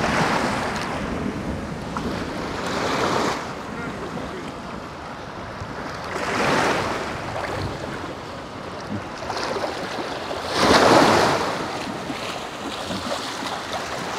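Small Black Sea waves washing in at the water's edge, a surge of surf every three to four seconds, the loudest about eleven seconds in.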